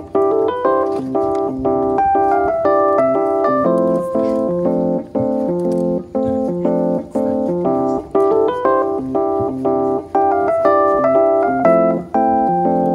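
Background music: a keyboard tune of short, clear notes with a regular beat.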